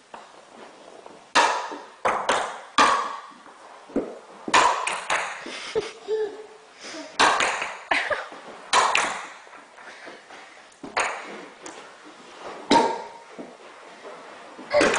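A toy golf club striking small toy golf balls, which clatter across a hard floor and off the walls of an empty room: a dozen or so irregular sharp clicks and knocks, each with a short echo.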